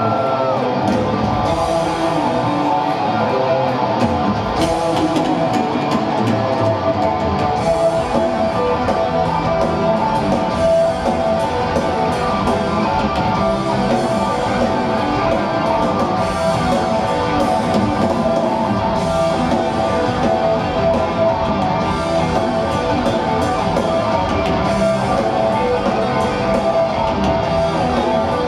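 Heavy metal band playing live at full volume through a PA: electric guitars, bass guitar and drum kit, with a sustained lead guitar melody line on top.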